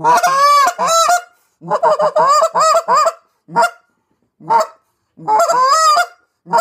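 Molt Gear EX3 goose call blown by mouth, making goose honks and clucks: quick runs of several calls broken by single honks, each call rising and falling in pitch.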